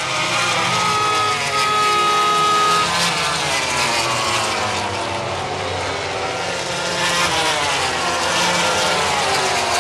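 A pack of 800 cc four-stroke MotoGP racing motorcycles running at speed. Many overlapping engine notes rise and fall as the riders accelerate, shift and brake through the corners.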